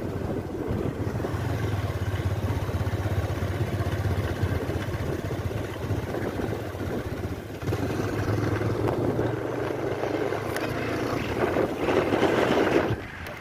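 Motorcycle engine running at low speed, with wind rushing over the microphone; the rush grows louder near the end, then drops off sharply.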